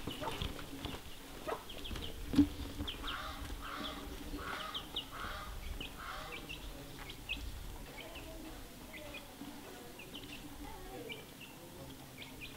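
Farmyard birdsong: small birds chirping over and over, with chickens clucking. Shoe-on-floor footsteps and one sharper knock sound in the first couple of seconds.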